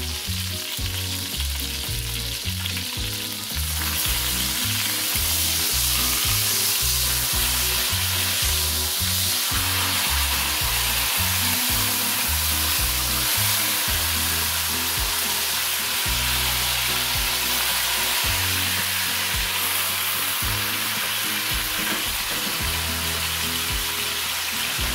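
Chicken leg quarters sizzling as they sear in olive oil and butter in an enameled cast-iron Dutch oven, while they are turned with tongs. The sizzle gets louder about four seconds in and then holds steady.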